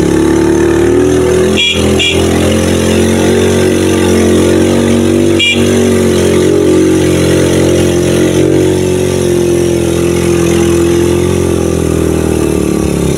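Motorcycle engine running steadily while riding along at an even pace, heard from the passenger seat of the moving bike.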